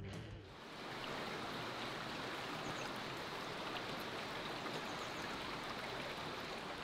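Small stream's water flowing with a steady, even rush. Background music fades out in the first half second.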